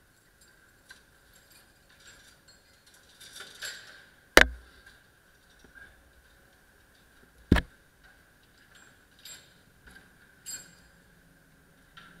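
Metal clinks and small clicks as the metal fittings of a Lindauer Schere are handled and fitted, with two sharp metallic knocks, the first about four seconds in and the second about three seconds later.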